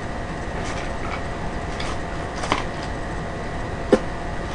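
A few light clicks and taps of chopsticks against plates and takeout boxes over a steady background hum; the sharpest click comes about four seconds in.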